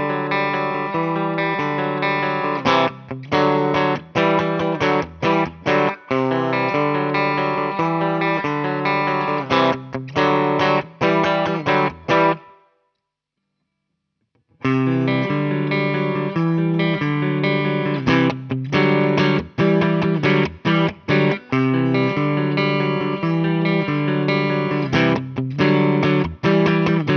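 Electric guitar played through a TC Electronic Impulse IR loader's cabinet impulse response: held chords broken by short, sharply stopped stabs. It falls silent for about two seconds midway, then a second passage starts.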